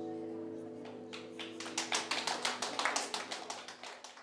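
Final chord of a nylon-string classical guitar ringing out and fading, then a small audience claps from about a second in, the applause thinning out near the end.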